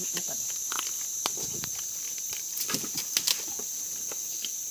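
Leaves rustling and twigs snapping as wild fruit is picked from a branch, with a cluster of sharp cracks about three seconds in. Under it runs a steady high buzz of forest insects.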